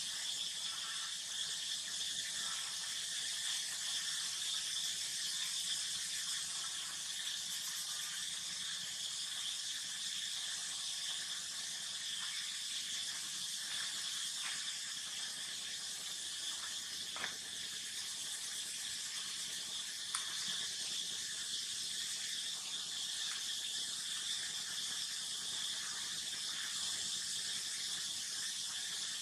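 Steady high-pitched insect chorus, even and unbroken, with two faint clicks about two-thirds of the way through.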